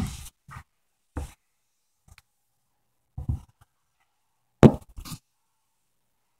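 Handling noise from a cell phone being moved and gripped: a handful of separate knocks and rubs against the microphone, with silence between them. The loudest comes about three-quarters of the way through.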